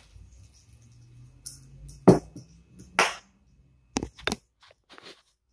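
Sharp clicks and knocks of a spinning reel and its metal handle being handled and fitted on a hard tabletop: single knocks about two and three seconds in, a quick pair about four seconds in, and softer taps near the end.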